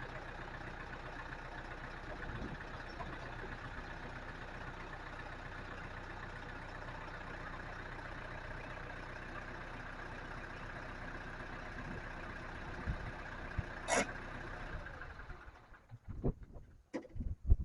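Case IH tractor engine running steadily, cutting out about fifteen seconds in, followed by a few sharp knocks and clicks.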